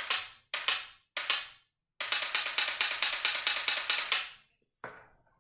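Dry firing an AR-15 fitted with a Mantis Blackbeard X auto-reset trigger system. There are three single shots about half a second apart, then a quick string of rapid fire lasting about two seconds, then one last shot. Each shot is a sharp click with a short fading tail.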